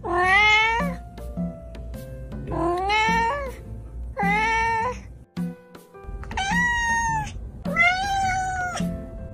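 Domestic cat meowing five times, each call under a second long, several sliding upward in pitch. Background music with a steady beat underneath.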